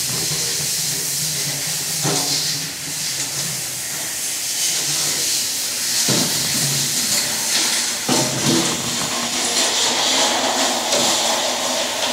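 A steady hiss, with a few faint knocks about two, six and eight seconds in.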